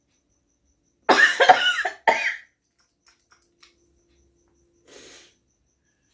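A woman coughing hard twice: a long, harsh cough about a second in, then a shorter one straight after. A faint breathy sound follows near the end.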